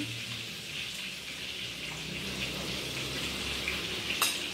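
Steady hiss in the background, with one sharp click of a spoon against the plate about four seconds in.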